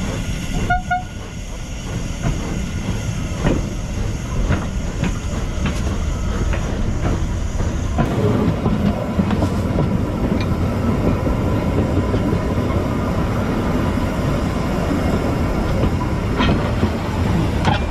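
Stephenson's Rocket replica steam locomotive running along the track, its exhaust and wheels on the rails heard from the tender, with the sound changing abruptly about eight seconds in.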